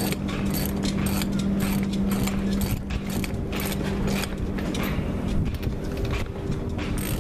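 Ratchet wrench clicking stroke after stroke, about two a second, as it turns the nut on a threaded-rod bearing puller, pressing the old strut bearing out of a sailboat's propeller-shaft strut. A steady low hum runs underneath.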